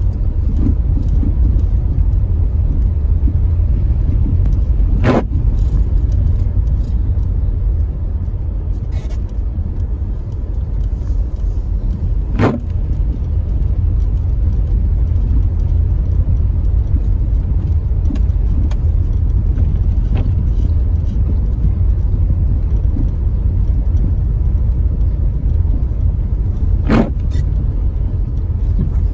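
Car driving over cobblestones, heard from inside the cabin: a steady low rumble of tyres and engine, with three short sharp knocks, about five, twelve and twenty-seven seconds in.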